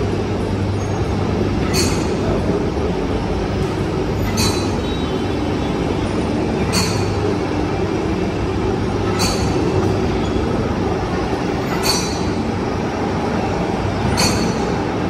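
A steady mechanical drone with a strong low hum, with a short high tick about every two and a half seconds.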